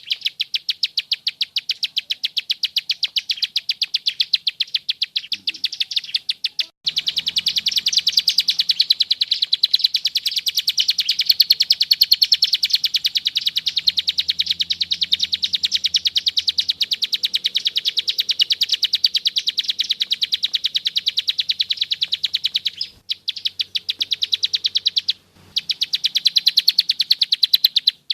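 Ciblek sawah (prenjak sawah, a prinia) singing its 'klik' song: long runs of rapid, evenly repeated high clicking notes, broken by short pauses about seven seconds in and twice near the end.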